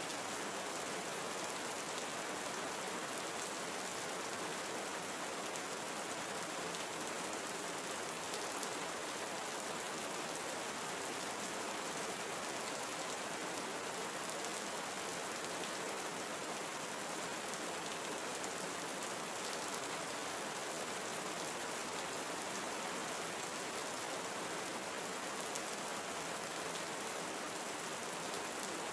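Steady tropical rainforest rain falling: an even hiss of many drops with faint scattered ticks of single drops.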